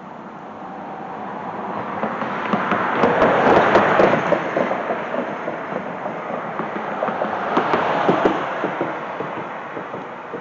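Two vehicles passing on the bridge, each a swell of tyre noise that builds and fades, about four and then eight seconds in, with scattered clacks at the loudest part of each pass.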